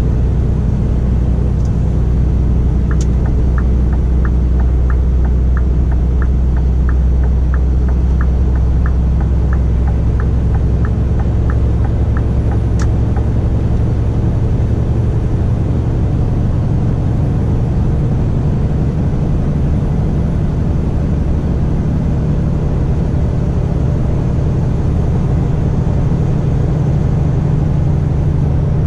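Scania R450's 13-litre straight-six diesel running under way, heard from inside the cab, its note rising about halfway through. For about the first ten seconds a regular light ticking runs over it at about two or three ticks a second, typical of the turn-signal indicator, starting and ending with a sharper click.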